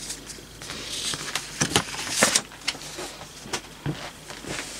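Paper instruction sheets being handled and turned: a run of rustles and light clicks and taps, busiest about two seconds in.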